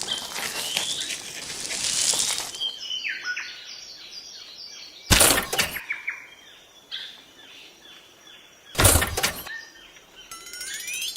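Bird-like chirping in quick short notes, broken twice by a loud, brief burst of noise.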